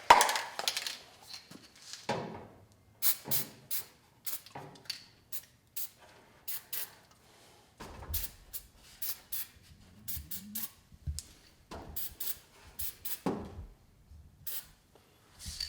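Aerosol lubricant sprayed in many short bursts onto garage door hinge pivots and roller carriers, sometimes several bursts a second, with a few low knocks from handling in the second half.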